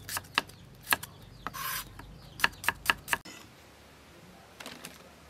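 Cleaver slicing shallots on a wooden chopping board: sharp knocks of the blade on the board, with a brief scrape about a second and a half in. The chopping stops about three seconds in, leaving only faint background.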